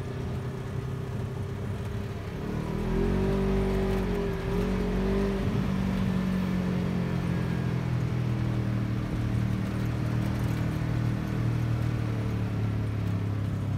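A motor vehicle engine running, revving up about three seconds in with the pitch wavering for a couple of seconds, then holding a steady drone.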